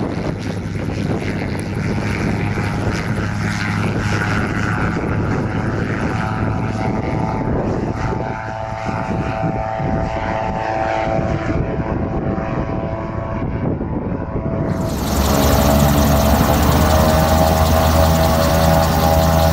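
Gyroplane's engine and pusher propeller running steadily as it takes off and climbs. About fifteen seconds in it cuts to a louder, steady engine drone heard from inside the gyroplane's cockpit.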